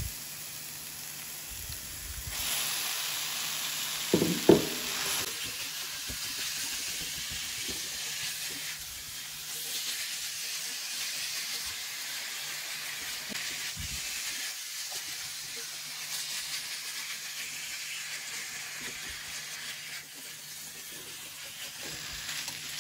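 Minced raw chicken breast sizzling in hot oil with onion and garlic in a frying pan, stirred now and then as it cooks and gives off its water. The sizzle is strongest for a few seconds near the start, and there is a brief loud scrape or knock of the utensil about four seconds in.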